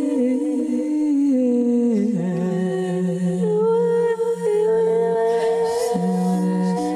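A woman's wordless humming and singing in long held notes that slide slowly up and down, improvised vocal sounding, with a second sustained lower note layered beneath.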